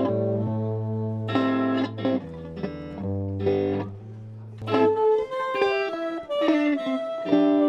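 Live instrumental jam of electric guitar and saxophone. Held notes sound over a sustained low tone, then a busier run of changing notes follows from about five seconds in.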